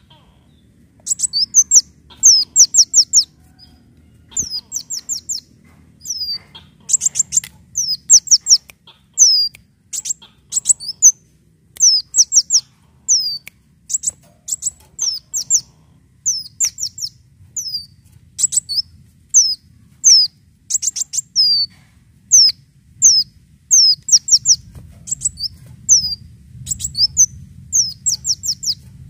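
Kolibri daun sunbird calling: quick runs of three to five high, thin, falling chirps, repeated again and again with short gaps.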